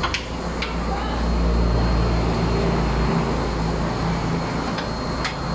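A steady low machine hum, swelling about a second in and easing off after about three seconds, with a few sharp metallic clinks of a hand wrench on the engine's front-end fittings, twice near the start and twice near the end.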